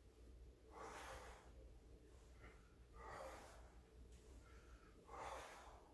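A man's faint, sharp exhales, three of them about two seconds apart, one with each crunch as he curls his upper body up.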